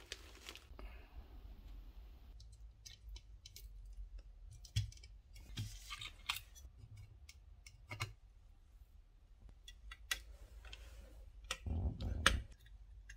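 Plastic parts bags rustling at first, then scattered sharp clicks and snips of small hand tools working on a circuit board, with a louder cluster of handling knocks about twelve seconds in.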